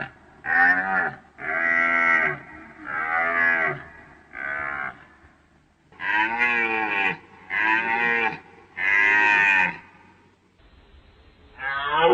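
A deer calling over and over: seven drawn-out, pitched calls, each under a second long and bending down in pitch at the end, with short gaps between them. Near the end, after an abrupt change in the background, a different call with a falling pitch begins.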